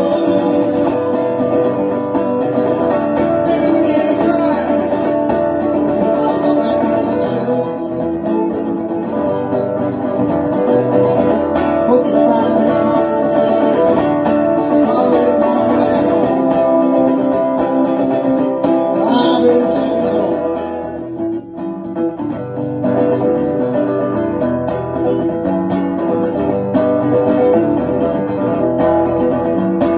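Electric Harmony archtop guitar with a P-90 pickup played through powered PA speakers, a continuous passage of picked notes and chords with a brief drop in level about two-thirds of the way in.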